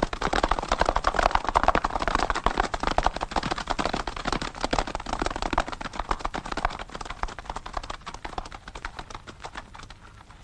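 Hoofbeats of a group of horses galloping, a dense rapid clatter that grows fainter over the last few seconds.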